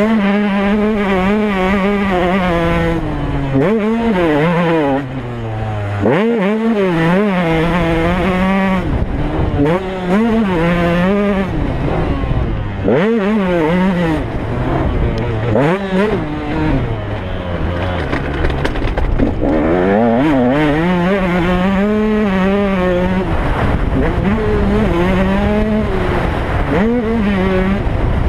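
KTM 125 two-stroke motocross engine being ridden hard, its pitch climbing and falling back again and again as the throttle is opened and closed. There is a short throttle cut about five seconds in.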